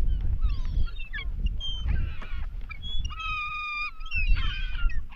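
A flock of gulls crying and squabbling, many short calls overlapping, with one long drawn-out call about three seconds in, over a steady low rumble.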